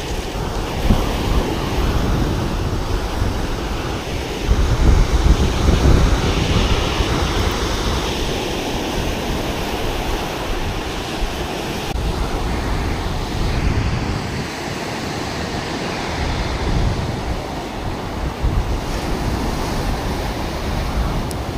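Surf breaking and washing up a shingle beach in a steady roar, with wind gusting on the microphone, strongest a few seconds in.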